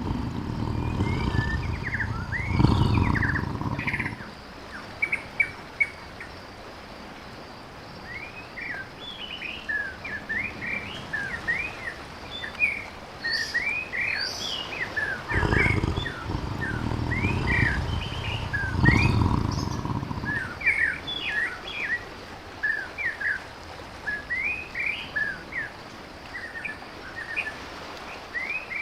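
Small birds chirping steadily, broken twice by a tiger's deep roaring, two calls each time: once at the start and again about halfway through. The roars are the loudest sounds.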